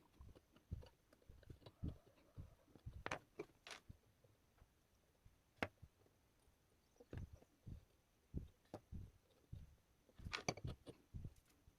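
Faint, irregular clicks and taps of small objects being handled, with little clusters of knocks about a quarter of the way in and near the end.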